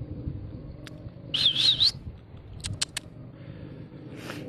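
A short warbling whistle, wavering up and down a few times, about a second and a half in, with a few sharp clicks before and after it.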